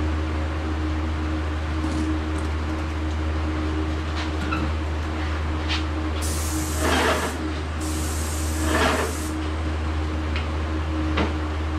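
Airless paint sprayer with a 310 tip spraying BIN shellac primer: two spray hisses of about a second and a half each, starting about six seconds in, with a short gap between them. Under it, the steady drone of exhaust fans, and a few small clicks from handling the gun.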